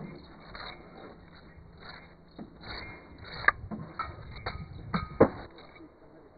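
Bricklaying by hand: scraping of mortar and trowel on brick, with a few sharp knocks as bricks are tapped into place, the two loudest about halfway through and near the end.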